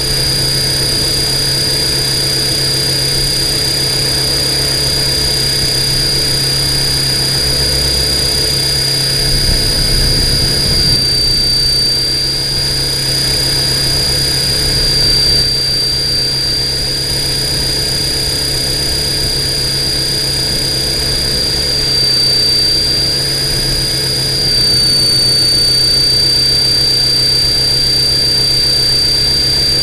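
Radio-controlled copter's motors and propellers running steadily in flight, heard up close through its onboard camera: a constant high whine over a low hum, dipping slightly in pitch twice and getting a little louder near the end.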